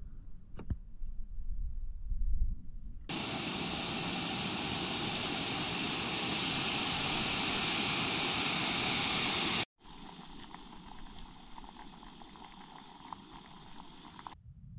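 A low rumble with a single click. Then, about three seconds in, a loud, steady hiss like a gas camping stove burning; it grows slightly louder and cuts off abruptly near ten seconds. After that comes faint rustling with small crackles.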